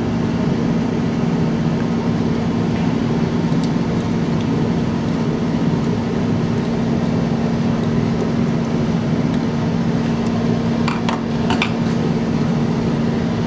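Steady low mechanical hum, with a few light metal clicks about eleven seconds in as small carburetor parts are handled.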